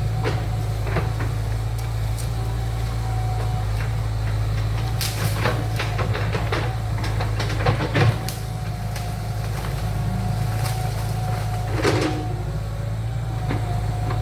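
Heavy construction machine engine running steadily under load, with a low hum and a held whine, and several sharp knocks and clanks, the loudest about eight seconds in and again near twelve seconds.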